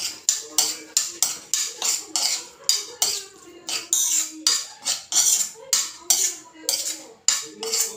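A utensil scraping and knocking against a frying pan in quick repeated strokes, about two to three a second, as cubed food is stirred in it.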